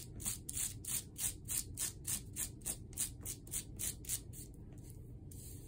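Felt-tip marker scrubbed back and forth across bubble wrap with the side of its tip, a quick, even scratching of about four strokes a second that stops about a second before the end.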